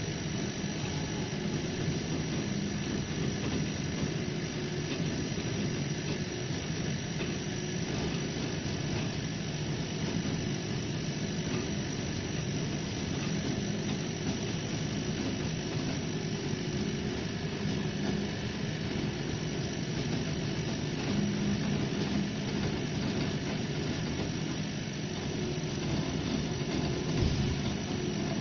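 80 W laser engraving machine running while it engraves plywood: a steady mechanical whir with a low hum that swells and fades as the head works.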